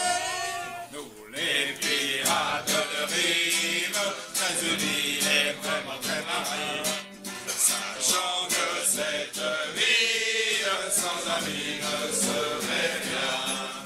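A group of voices singing a song together, with sharp strikes in its rhythm.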